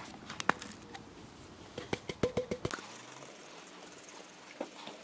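Light clicks and knocks from containers being handled on a tabletop, with a quick cluster of them a little past two seconds in. Then a faint hiss as baking soda is shaken from its container into a plastic tub.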